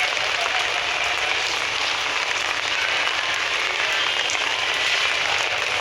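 Steady rain falling, a dense, even hiss of drops.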